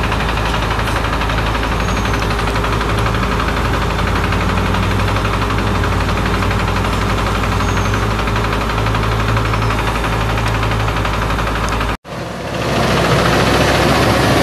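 International DT466 turbo-diesel idling steadily. About twelve seconds in the sound drops out for an instant and comes back a little louder, with more hiss.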